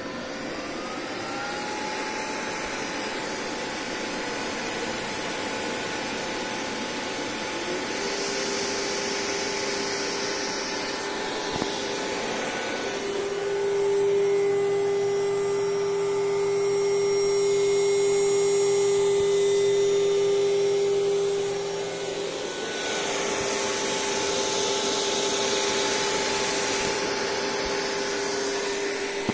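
Spindle motor of a newly built CNC machine, run from a variable frequency drive, at its first start: a steady electric whine that glides up in pitch and then holds, growing louder for several seconds in the middle, over a constant whirring hum with two stretches of added hiss.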